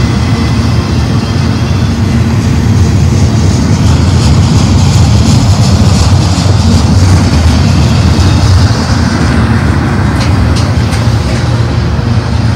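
Double-stack intermodal freight cars rolling past close by: a loud, steady rumble of steel wheels on rail with a hiss that swells midway, and a few sharp clicks about ten seconds in.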